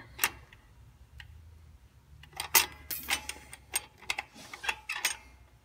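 Small metallic clicks and taps of rear drum-brake hardware being handled, as the self-adjuster spring and lever are fitted onto the brake shoe. One click comes just after the start, then a run of irregular clicks from about two and a half to five seconds in.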